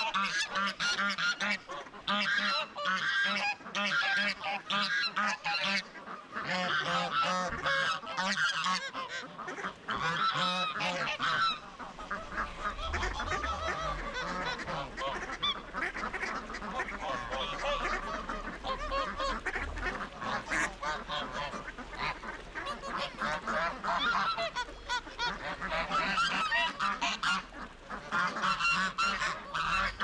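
A flock of domestic geese honking continuously, many calls overlapping. A low rumble comes in about halfway through.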